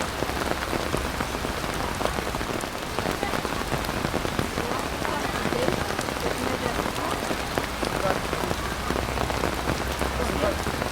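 Steady pouring rain: an even hiss of falling rain with scattered individual drop hits, unchanging throughout.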